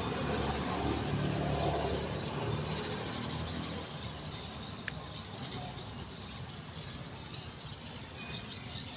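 Small birds chirping repeatedly over a steady background noise, with a low rumble during the first few seconds.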